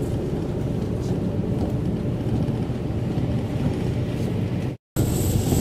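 Steady road and engine rumble inside a moving vehicle's cabin. It cuts out for an instant near the end and comes back with more hiss on top.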